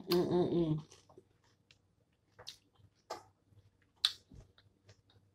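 A person eating a mouthful of a veggie burrito bowl. For about the first second there is a closed-mouth "mmm" hum of enjoyment, then scattered wet chewing and lip-smacking sounds with small clicks.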